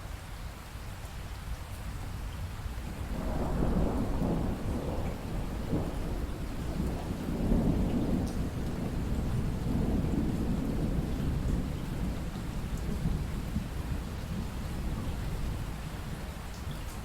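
Steady rainfall with a long roll of thunder over it. The rumble builds about three seconds in, is loudest near the middle, and fades away toward the end.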